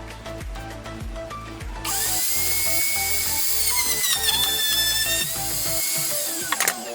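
Electric power tool motor whining at high pitch for about four and a half seconds, starting about two seconds in; its pitch sags in the middle as if under load, then it winds down and stops. Background music plays throughout.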